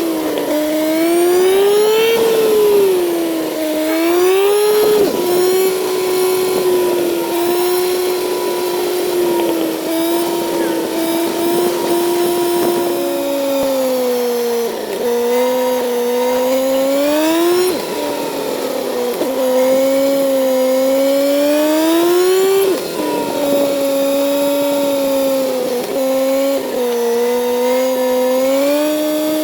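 Kawasaki Z900's inline-four engine running while riding, its pitch rising and falling with the throttle and dropping sharply several times, over wind rush.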